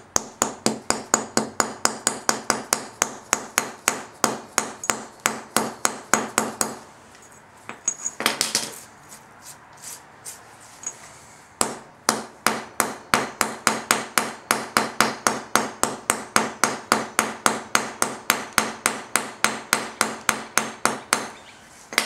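Small hammer rapidly tapping a freshly poured gold bar, about three or four sharp ringing blows a second, chipping off the glassy borax slag with its bits of quartz and ironstone. The tapping stops for about five seconds around the middle, with one short scraping noise, then starts again.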